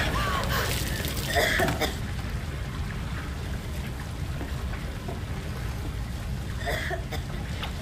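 Sea water sloshing and splashing around people floating in the water, over a steady low rumble of waves, with a few short splashes near the start and one near the end.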